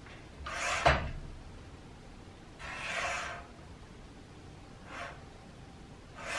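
Paper trimmer's cutting head sliding along its rail: a short swish that ends in a sharp knock, then a softer, longer swish around three seconds in, a faint one near five seconds, and another beginning at the end.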